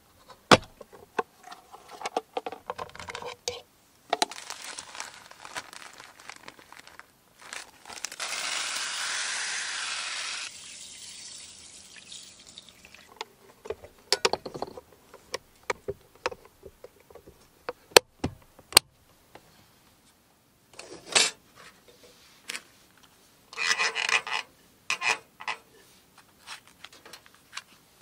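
Close handling sounds of cooking prep: clicks of a plastic container's lid clips, then water poured steadily for about two seconds. Near the end come more clicks and short scraping bursts as a hurricane oil lantern is worked for lighting.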